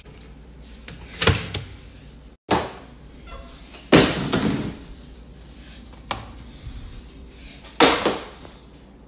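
Kitchen clatter: five sharp knocks and bangs about one to two seconds apart, the loudest about four seconds in and near the end, like cupboard doors and objects being knocked about on a counter.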